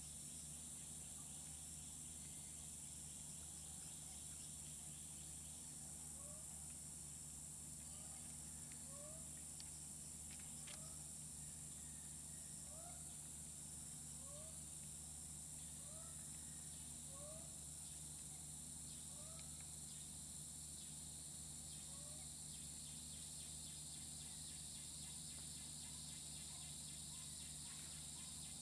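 Tropical rainforest ambience: a steady high-pitched insect drone, with a bird repeating short rising notes about once a second through the middle, over a faint low hum.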